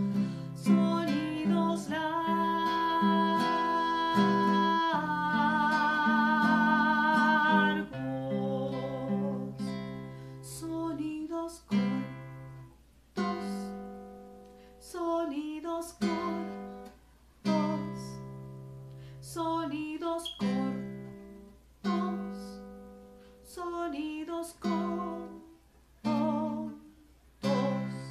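Woman singing held notes, some with vibrato, over a nylon-string classical guitar. From about eight seconds in, the guitar plays alone, strumming a chord every second or two and letting each one ring and fade.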